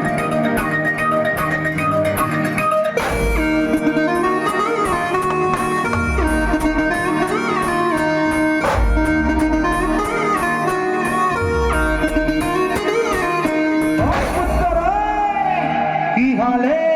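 Brass band music: an instrumental introduction with a melody of sliding notes over held chords, and heavy bass drum hits about every three seconds. Toward the end the melody turns to sweeping, gliding notes.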